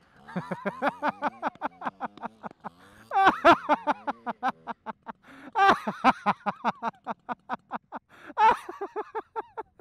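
Someone laughing hard in a long fit of quick ha-ha pulses, with several louder bursts along the way.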